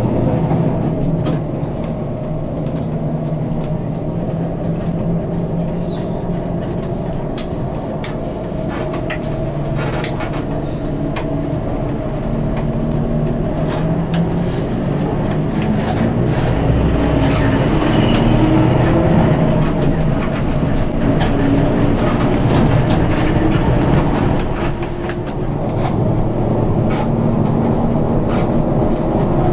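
Intercity bus engine running and road noise heard inside the cabin, with frequent small rattles and clicks. The engine note rises and grows louder about halfway through, then eases.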